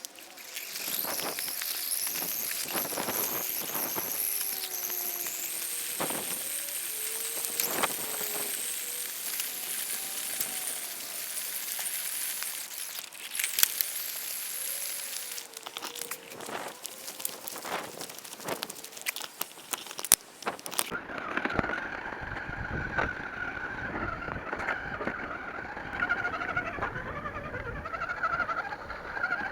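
Radio-controlled rock crawler driving over rough, stony ground: a small electric motor and gearbox whining, with crackling and clicking from the tyres and stones. About two-thirds of the way through the sound changes abruptly to a steadier, wavering whine.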